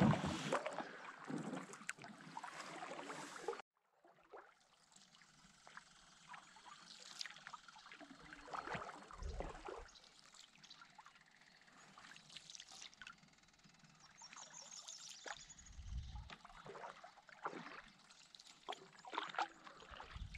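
Water splashing and trickling beside a canoe, busier for the first few seconds before it cuts off abruptly. Then come faint drips, small clicks and a couple of low thuds.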